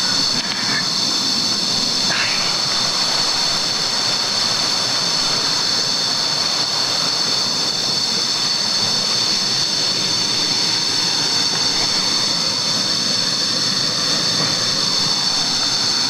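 Steady jungle ambience: a constant high-pitched insect chorus over an even rushing hiss.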